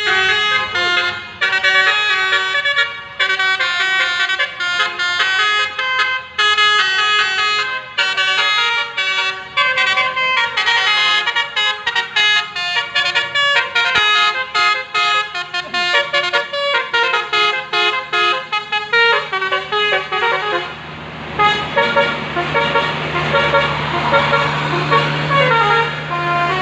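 Bus 'telolet' multi-tone musical horn (basuri-type) playing a quick, stepping melody of overlapping horn notes. About twenty seconds in, a steady low drone and a rough noisy wash join in under the horn.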